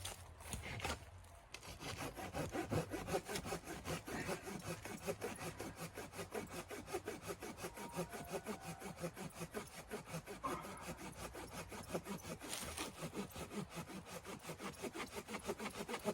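Hand saw cutting through wood in quick, even back-and-forth strokes, several a second, starting about a second and a half in.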